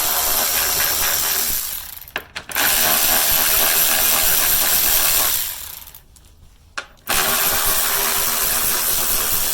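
A handheld power tool running in three long bursts, each two to three seconds long, as it spins out the three 10 mm bolts one after another.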